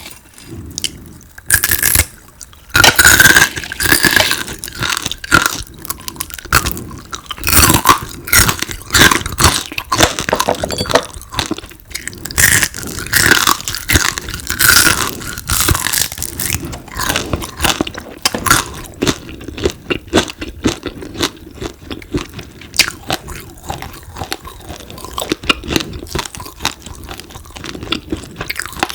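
Close-miked crunching and chewing of crispy deep-fried frog, with sharp, irregular crackles from bites and chews throughout, loudest a few seconds in.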